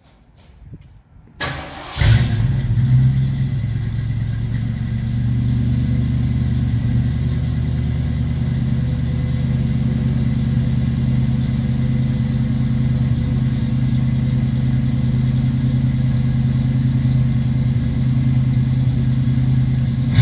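A 1969 Ford Mustang Mach 1's V8 starting cold: a brief crank, then it catches about two seconds in and runs steadily at a fast high idle.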